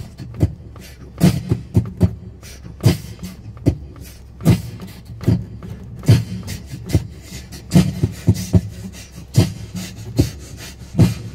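Beatboxing into a cupped hand: a steady drum beat with a heavy kick about every 0.8 seconds and lighter hits in between, over a low steady hum.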